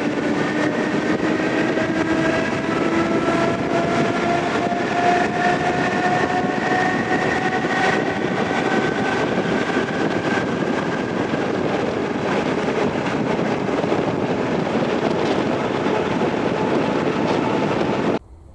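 ER2T electric train running on the rails with a steady rumble and wheel noise, and a whine from its traction motors and gearing that rises slowly in pitch as it gathers speed. The sound cuts off suddenly near the end.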